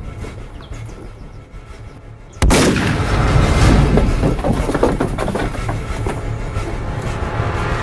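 A single gunshot about two and a half seconds in, sudden and loud, followed by a long rumbling tail that stays loud and fades only slowly.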